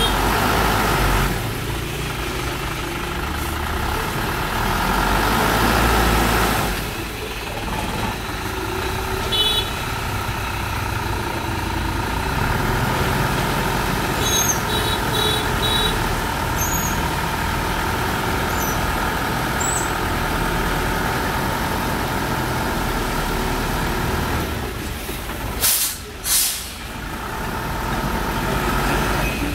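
Diesel engine of a TMT dump truck running steadily while its hydraulics tip the loaded bed to dump sand. There are two short, sharp bursts of noise near the end.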